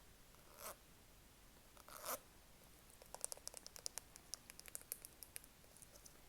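Quiet close-up ASMR handling sounds: two short soft rustles, then a quick run of light, crisp taps and clicks for about two and a half seconds.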